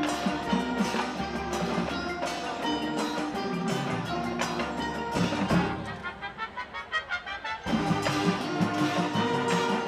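Marching band playing its field show music with wind instruments and percussion. About six seconds in, the full band drops away to a quieter passage of quick pulsing notes, roughly six a second, and the full band comes back in sharply about a second and a half later.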